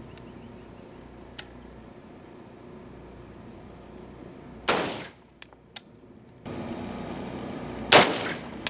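Two shots from a 6.8mm SPC rifle, each a sharp crack with a short ringing tail. One comes about halfway through and a louder one comes near the end.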